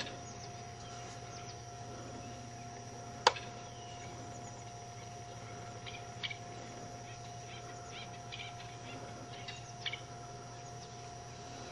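Faint outdoor ambience with a steady low hum and scattered short high bird chirps, mostly in the second half. A single sharp click comes about three seconds in.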